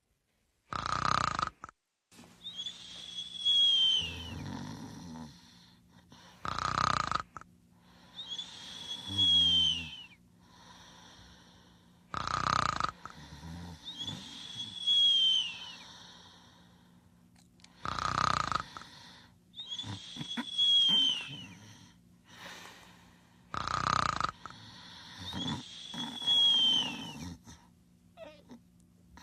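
Snoring in a slow regular cycle, about once every six seconds: a short harsh snort, then a high whistling note that falls in pitch, then a rougher breath. A faint steady hum runs underneath.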